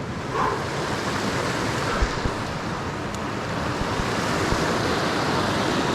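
Steady rushing of a river, with a few brief low thumps.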